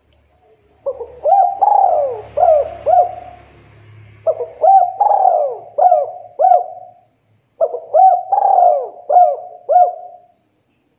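Spotted dove (tekukur) in full song, cooing: three phrases of four or five repeated coo notes each, with short pauses between the phrases.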